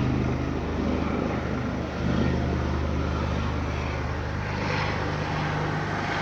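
Police helicopter hovering overhead: a steady drone of its rotor and engine.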